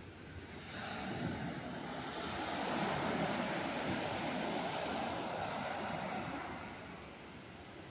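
Sea surf: a wave breaking and washing up the beach. It swells about a second in and fades near the end.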